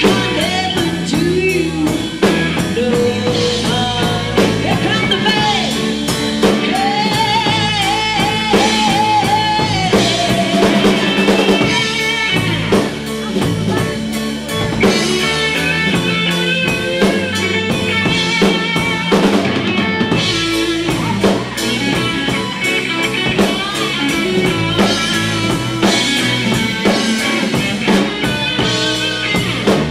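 A live band playing a blues-rock song with drum kit and electric guitar, with singing in places.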